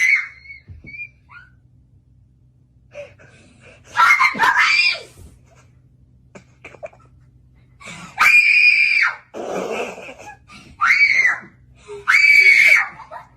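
High-pitched screaming voice: a short outburst about four seconds in, then three long, shrill screams in the second half.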